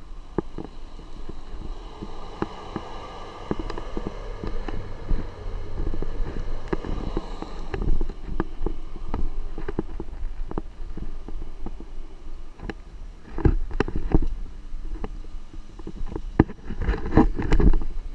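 Pickup truck driving over a rough, overgrown forest track, heard from the truck bed: a low, muffled rumble with many knocks and rattles. Clusters of louder knocks and scrapes come about two-thirds through and near the end, as branches brush past.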